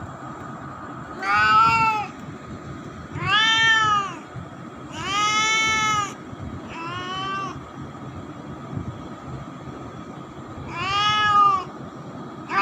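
Domestic cat meowing five times, each meow rising then falling in pitch, with a pause of about three seconds before the last one; another meow begins right at the end.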